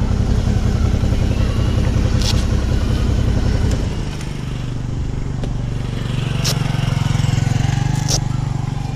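Motorcycle engine idling. About four seconds in, its sound drops to a lower, steadier note, and three sharp clicks sound over it.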